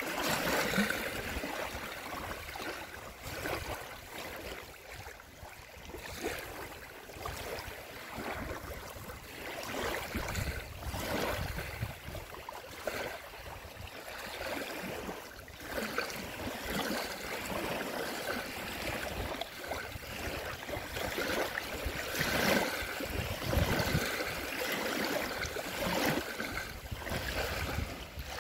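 Small lake waves lapping and washing up a paved slipway, in irregular splashes a few seconds apart.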